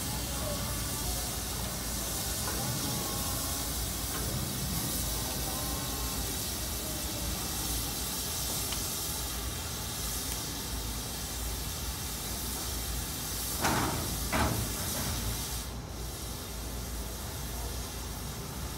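Steam locomotive hissing steadily with steam while it stands on a turntable. Near the end there are two short, louder bursts about half a second apart.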